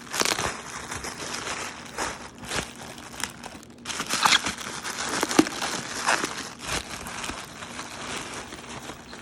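Plastic packing wrap being handled and pulled off a boxed bass guitar: irregular rustling and crackling, loudest between about four and six seconds in.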